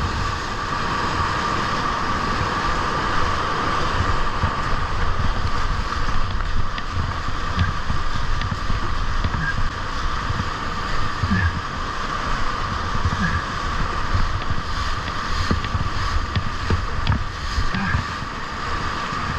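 Steady rush of a river wave's whitewater breaking around a surfing kayak, with splashes against the hull and low rumbling buffeting on the microphone.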